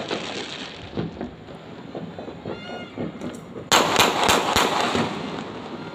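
Fireworks and firecrackers going off: scattered cracks, then a sudden loud cluster of bangs and crackling nearly four seconds in that fades away.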